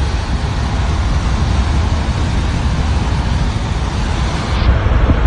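Vehicle driving at road speed: a steady noisy rush of road and wind noise over a heavy low rumble. The highest hiss drops away abruptly near the end.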